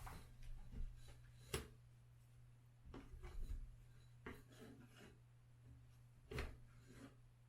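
A few light knocks and scrapes of parts being handled as a Onewheel XR battery unit is slid into its rail; the sharpest knocks come about one and a half seconds in and near the end. A steady low hum runs underneath.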